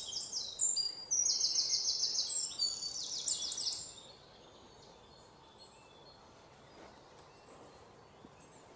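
Small birds chirping in quick, high trills of rapidly repeated notes, loud for about the first four seconds, then only a faint background hiss.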